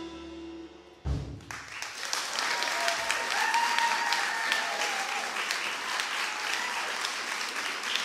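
A small jazz band's last held chord fades out, a sharp final hit closes it about a second in, and the audience breaks into steady applause, with a brief whoop in the middle.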